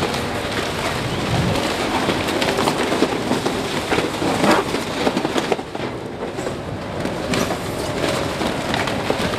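Spiked compaction roller of a roll-packer rolling over cardboard in an open steel container: a steady machine running sound with continuous crackling and crunching as the cardboard is crushed, a little quieter about six seconds in.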